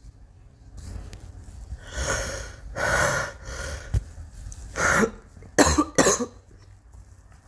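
A girl coughing: a run of harsh coughs with breaths between them, the loudest about three seconds in and a quick pair about two-thirds of the way through.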